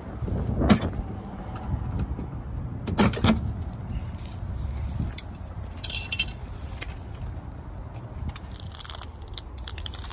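Plastic wheel-arch trim clips on a Nissan Juke being pried out with a clip-removal tool: sharp clicks and snaps, loudest about a second in and around three seconds in, with lighter rattling later. A steady low wind rumble sits on the microphone.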